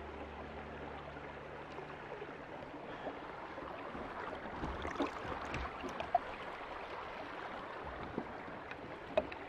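Water moving around a plastic fishing kayak on a creek, a steady wash, with a few light knocks against the hull about halfway through and again near the end.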